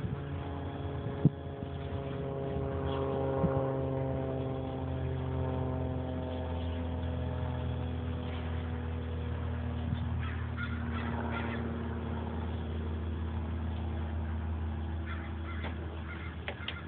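Axial SCX10 RC rock crawler's electric motor and geared drivetrain whining steadily as it crawls slowly over rocks, the pitch sagging slightly over the first several seconds. A sharp click comes about a second in, and scattered small clicks follow later on.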